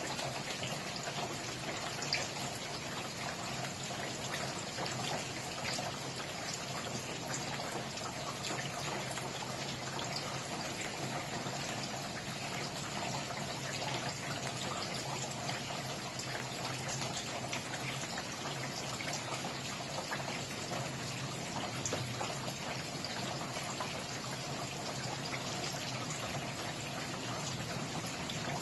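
Steady rainfall with dense patter of drops, an even hiss with no break or change.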